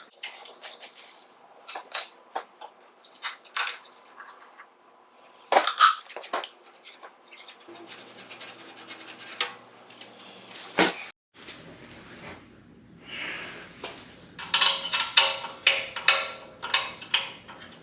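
Hand tools and metal parts clicking, tapping and scraping as parts are taken off a motorcycle, in scattered sharp knocks with a denser run of clicks in the last few seconds.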